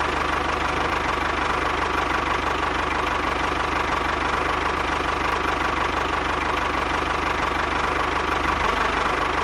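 Small motor of a homemade miniature tractor running steadily, with a fast, even pulsing.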